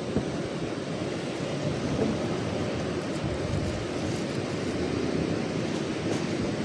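Wind buffeting the microphone: a steady, unsettled low rumble.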